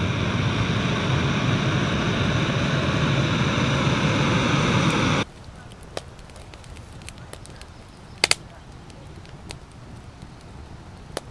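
Handheld gas blowtorch on a butane canister hissing steadily as its flame lights a stack of dry sticks; the hiss stops abruptly about five seconds in. Then a wood fire crackles with sparse sharp pops, the loudest a quick double pop a little after eight seconds in.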